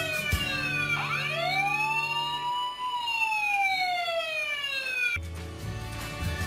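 Electronic wailing siren of a Tonka toy fire truck: its pitch falls, rises and falls again in slow sweeps, then cuts off suddenly about five seconds in. Background music plays under the first half and takes over after the siren stops.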